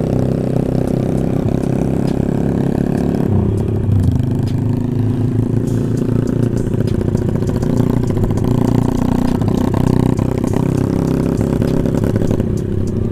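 Motorcycle engine running under way, heard from the rider's own bike, its pitch dropping about three and a half seconds in and changing again later as the speed varies.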